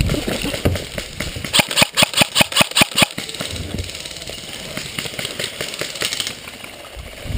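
An airsoft electric rifle firing a rapid string of about ten shots, roughly seven a second, for about a second and a half, over the shuffle and rustle of players moving.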